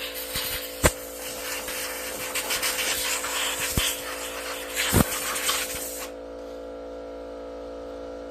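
Compressed air hissing from an air-hose blow nozzle as it blows a mouse nest out from under a riding mower's engine shroud, with a couple of sharp knocks along the way; the air cuts off suddenly about six seconds in, leaving a steady hum.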